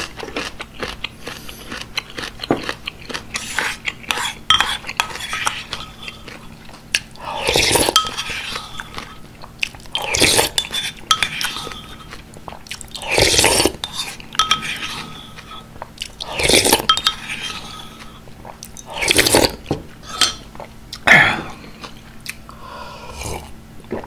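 Close-miked chewing with small crunches of kimchi, then loud slurps of soup broth drunk straight from a ceramic bowl, about six of them a few seconds apart.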